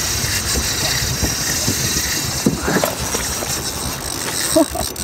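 Boat motor running steadily.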